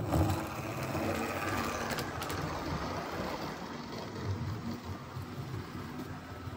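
Model HST train running past on the layout track: the motor's hum and the wheels' rumble on the rails, loudest at the start as it passes close and slowly fading as it runs away.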